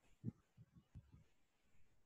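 Near silence, with a few faint low taps from a stylus writing on a drawing tablet.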